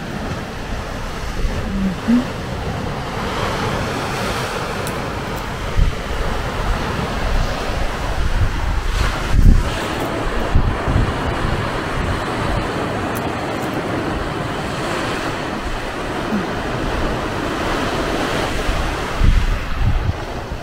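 Sea surf washing against the foot of rocky sea cliffs, a steady rushing wash, with wind buffeting the microphone in gusts, hardest about halfway through.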